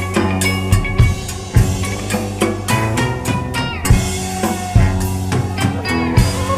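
Band music with a drum kit keeping a steady beat, the bass drum and snare prominent under sustained pitched instruments.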